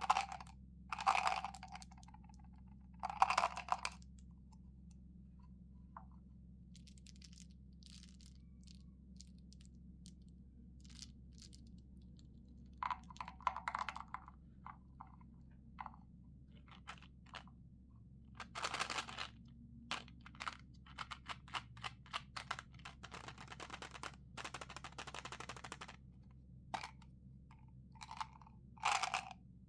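Mentos gum packaging handled and unwrapped: scattered crinkles, clicks and taps, with a denser run of quick crinkling and clicking about three quarters of the way through. A faint steady hum lies underneath.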